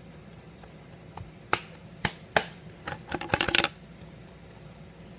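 Crunchy slime with small foam beads in it being squeezed and worked in the hands: three sharp pops, then a quick run of crackling clicks about three and a half seconds in.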